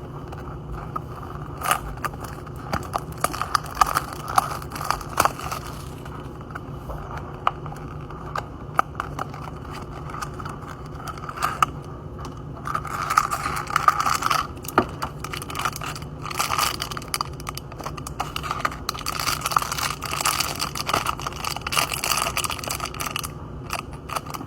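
Small toy packs of cardboard and plastic being handled and turned over, crinkling and scraping with many small clicks and taps. A steady low hum sits underneath.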